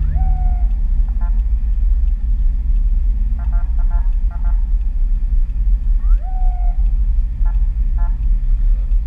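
Steady low road and engine rumble inside a car cabin, with the escorting police car's electronic siren giving short sweeping whoop chirps twice, at the start and about six seconds in. Quick bursts of rapid beeping tones from the siren come about halfway through and again near the end.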